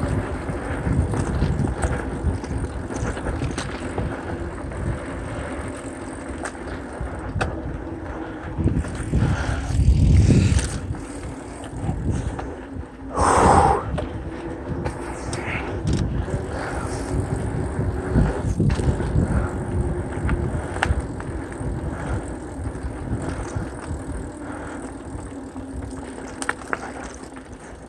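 Mountain bike rolling down a dirt trail: the tyres rumble over the ground and the bike clatters with many small knocks over bumps. There is a heavier rumble about ten seconds in and a brief sharp noise about thirteen seconds in.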